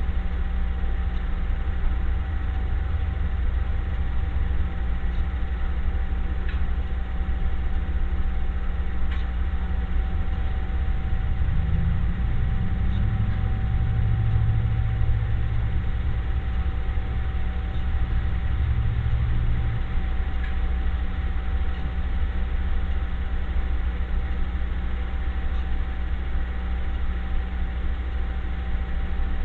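A steady low mechanical drone with a faint constant tone running through it. A deeper hum swells for several seconds in the middle, then settles back.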